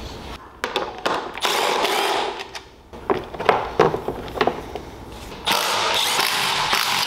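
Small Milwaukee cordless driver spinning out 8 mm bolts from an engine's air box, in a short run early on and a steady longer run starting about two thirds of the way in. In between, plastic air-box parts knock and click as they are lifted off.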